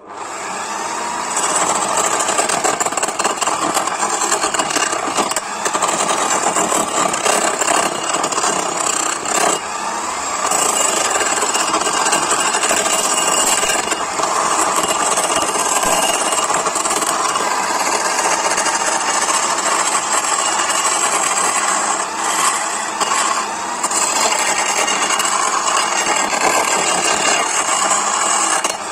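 Parkside PDM 600 wood lathe running while a turning chisel cuts into the spinning wooden spindle, a steady scraping, rasping cut. The sound starts abruptly at the beginning.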